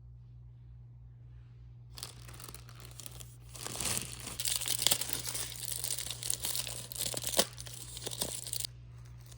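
Crinkling and rustling, like plastic or packaging being handled, uneven with a few sharp crackles, starting about two seconds in and stopping near the end, over a steady low hum.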